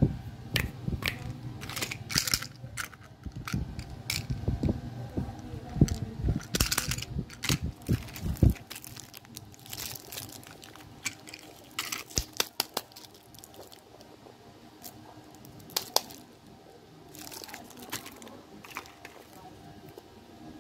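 Cellophane candy wrappers crinkling and rustling in the hands, with clicks and knocks of small plastic candies and toys being handled. A run of low thumps and bumps lasts through about the first eight seconds, then only scattered crinkles and clicks.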